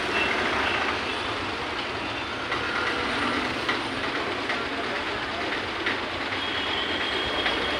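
Busy street ambience: a steady wash of traffic and bustle, with small scattered clicks and knocks and a faint high tone in the second half.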